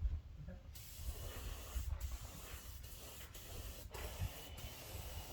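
Paint spray hissing steadily as colour is sprayed onto a cement sculpture, starting about a second in and cutting out for a split second a few times.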